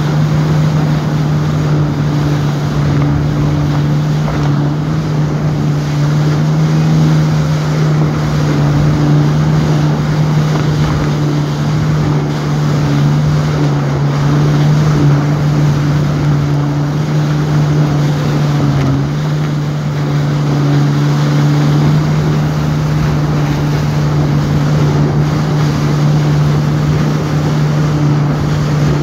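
Jet ski engine running steadily at speed, a constant drone that holds its pitch, with water spray rushing alongside and wind buffeting the microphone.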